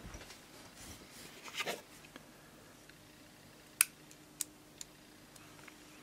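Pliers and small metal lighter parts handled over a metal tray: light rustling and scraping in the first two seconds, then a sharp metallic click about four seconds in, followed by two fainter clicks.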